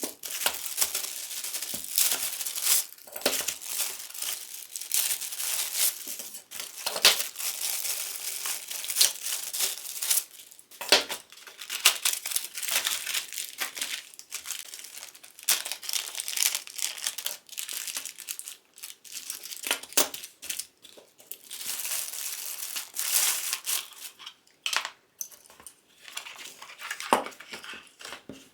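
Plastic wrapping and cardboard packaging crinkling and rustling as an all-in-one CPU water cooler is unpacked from its box, in irregular spells with sharp handling clicks.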